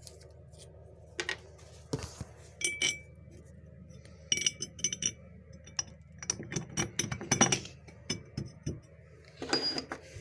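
Small steel nuts and washers clinking as they are handled and set down on a steel plate and workbench: a run of light metallic clinks, some ringing briefly.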